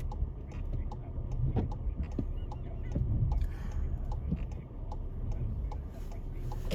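Car engine idling, heard from inside the stationary car's cabin as a steady low rumble, with a light regular ticking about twice a second.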